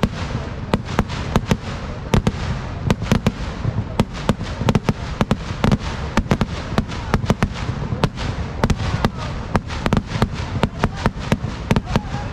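Vedikettu fireworks going off in a dense, irregular barrage of sharp cracker bangs, several a second, over a continuous low rumble.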